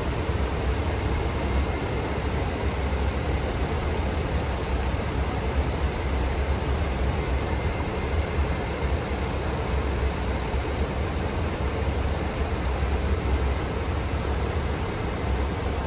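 Steady cockpit noise of a parked Boeing 767-400: a low rumble and rush of air from the flight deck's air-conditioning and ventilation, with a faint steady hum.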